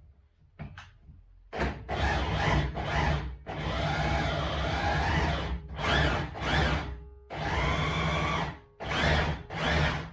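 Power drill driving a tilting car lift, run in about eight stop-start bursts under the load of raising the car, the longest nearly two seconds. There are a few light clicks before the drill starts, about a second and a half in.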